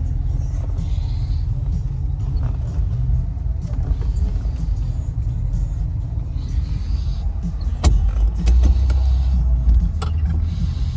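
1957 Ford Thunderbird's carbureted V8 with mellow mufflers running at low speed as the car backs up, the engine still cold from a fresh start. A steady low rumble that grows louder about eight seconds in, with a couple of sharp clicks.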